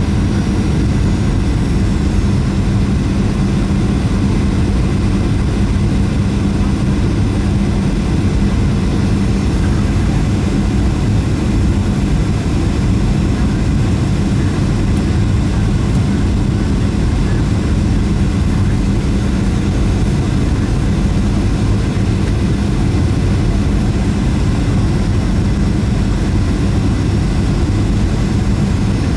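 Cabin noise of a Boeing 737-700 on final approach, heard from inside the cabin over the wing: its CFM56 turbofan runs steadily under a strong low rumble of engine and airflow, with a steady low hum.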